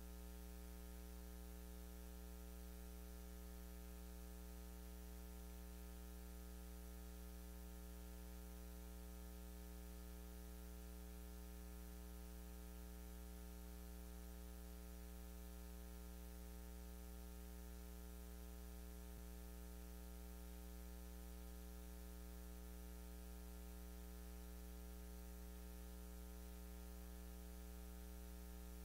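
Steady electrical mains hum with its overtones over a faint hiss, unchanging throughout.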